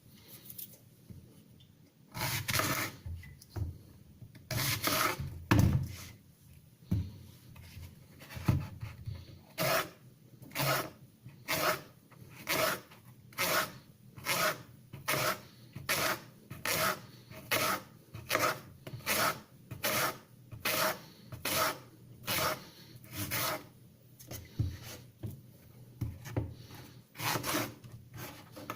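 Victorinox serrated paring knife drawn in repeated rasping strokes: a few uneven strokes starting about two seconds in, then from about ten seconds in a steady run of roughly one stroke a second.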